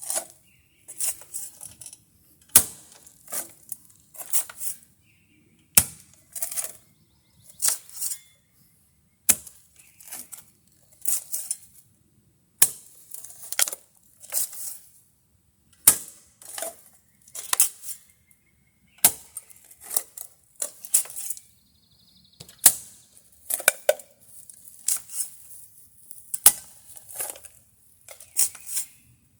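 Hand digging of a footing hole: a metal digging tool strikes into the ground about every three seconds, nine times in all, each strike followed by crunching and scraping of soil.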